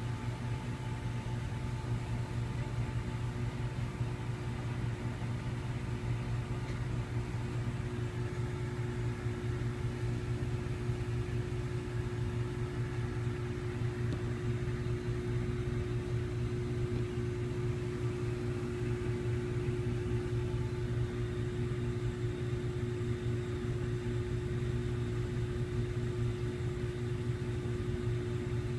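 Steady low mechanical hum, like a household fan or appliance running, unchanging throughout.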